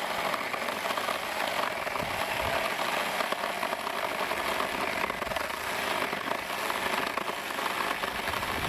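Mini chainsaw cutting through wood: a steady, unbroken chain-and-cutting noise, with the saw held back from being pushed hard because it keeps getting stuck in the cut.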